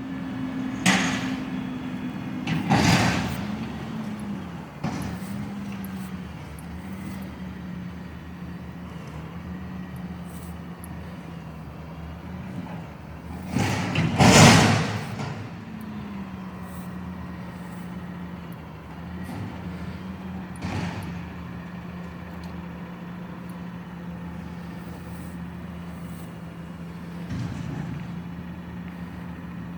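Garbage truck engine running, its pitch wavering for the first half and then holding steady, with loud sudden clanks and hisses from the truck's working gear: two early, one loudest about halfway through, and smaller ones later.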